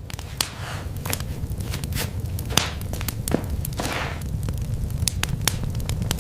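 Rope and bamboo ladder gear being handled: scattered sharp clicks and knocks with a few short swishes over a steady low rumble.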